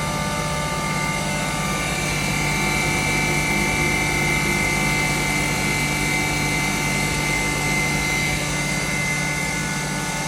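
2 HP turmeric grinding machine running steadily as it grinds turmeric, a constant whirring hum with several steady tones. It gets slightly louder from about two seconds in and eases back near the end.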